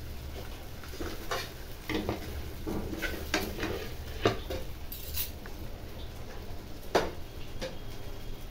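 Slotted steel spatula scraping and knocking against a nonstick kadhai as pieces of fried capsicum and tomato are scooped out. There are several scattered clinks, and the sharpest is about seven seconds in.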